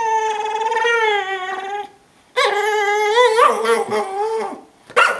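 Brittany spaniel whining in excited greeting, a shoe held in her mouth: two long wavering whine-howls of about two seconds each, then a short yip near the end.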